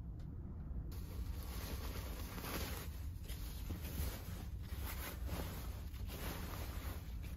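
A cotton sheet and duvet rustling as they are handled, starting about a second in, over a steady low hum from the ferry's engines.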